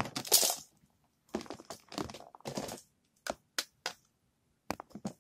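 Plastic Nerf toy guns being handled: rustling and clattering, then a string of sharp separate clicks in the second half.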